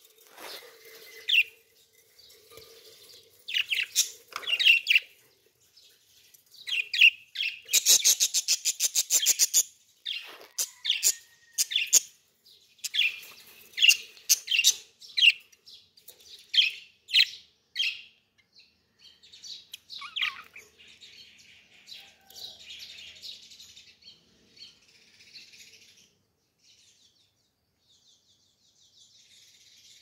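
Small caged parrots chirping: a string of short, sharp, high calls, with a fast chattering run about eight seconds in. The calls thin out and grow faint over the last several seconds.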